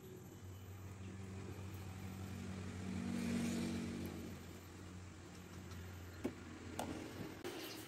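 A motor vehicle passes in the background, its engine growing louder to a peak about three seconds in and then fading, over a steady low hum. A couple of light clicks come near the end.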